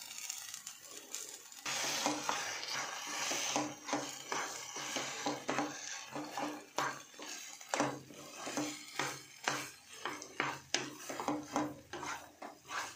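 Wooden spatula stirring and scraping a thick vegetable and tomato-puree mixture in a kadhai: a run of quick scrapes and knocks against the pan over a frying sizzle that starts a couple of seconds in.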